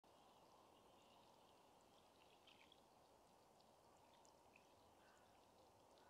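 Near silence: faint steady outdoor ambience with a low wash, and a few faint distant bird chirps around the middle.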